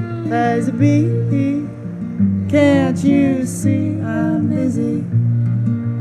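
Live acoustic folk music: an acoustic guitar strummed under a bowed fiddle, with a man singing the melody. There is a wavering high note about halfway through.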